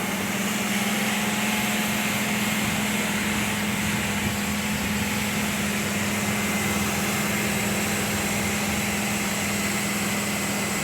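Pressure washer running steadily with its spray hissing, one constant pitch under an even spray noise.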